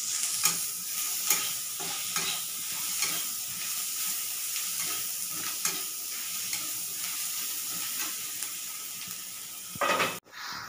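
Sliced onions sizzling in hot oil in a kadhai while a metal spatula stirs them, with frequent clinks and scrapes of the spatula against the pan. Near the end comes a louder scrape, then a brief break in the sound.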